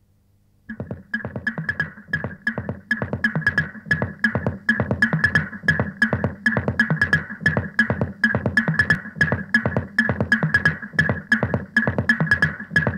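Lo-fi cassette-recorded music starts abruptly just under a second in: a fast, steady repeating pattern of about four or five notes a second, with a low part and a bright upper part, and no voice.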